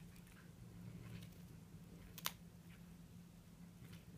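Cat chewing a chicken wing: faint chewing with one sharp crunch of bone about two seconds in.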